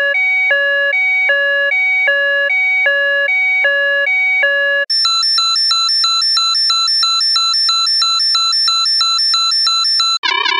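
Synthesized electronic alarm tones: a two-tone alarm alternating between a lower and a higher beep in a steady repeat, which cuts off about five seconds in and gives way to a higher-pitched, faster alternating two-tone alarm. Just before the end, a third, warbling alarm tone starts.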